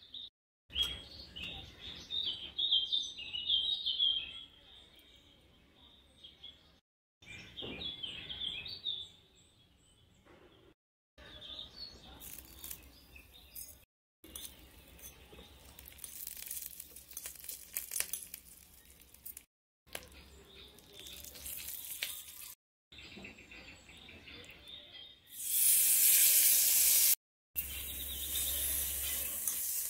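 Birds chirping at first; then hot oil sizzling in a miniature pan as curry leaves and chopped bitter gourd fry and are stirred with a spoon. The sizzle turns loud and steady near the end, when the bitter gourd pieces are in the oil.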